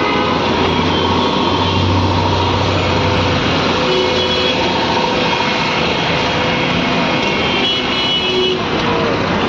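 Busy city road traffic: the engines of passing vehicles running steadily, with a heavier low engine drone passing about a second and a half in.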